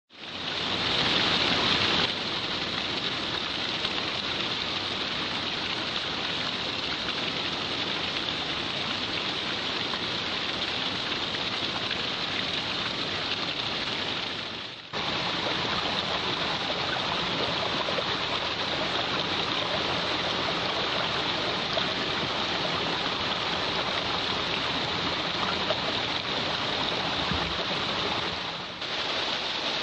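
Water of a small waterfall and its stream splashing and rushing in a steady, even wash of noise, dipping briefly about halfway through and again near the end.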